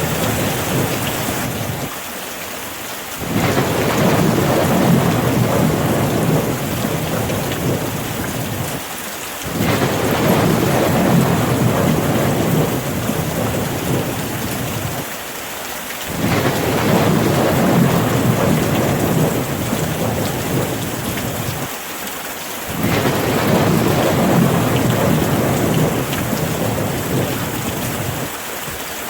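Rain falling with low rumbling thunder that swells and eases about every six to seven seconds, in an even, repeating cycle.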